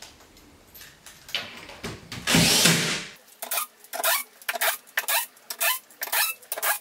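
Cordless drill with a Phillips bit driving cam pins into a wooden panel. One longer run comes about two seconds in, followed by a quick, even string of short bursts, about three a second.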